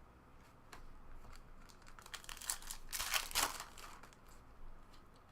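Trading cards and their packaging being handled, with light clicks and a louder stretch of crinkling and rustling in the middle.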